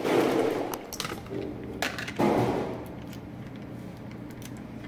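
Kitchen clatter: two noisy knocking, scraping bursts, one at the start and one about two seconds in, with scattered clinks of metal or glass. A steady background hum runs underneath.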